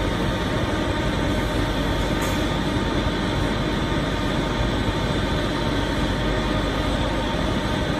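Solventless laminator running steadily while laminating aluminium foil: an even, constant mechanical hum and rush from its rollers and drives, with a few faint steady whining tones above it.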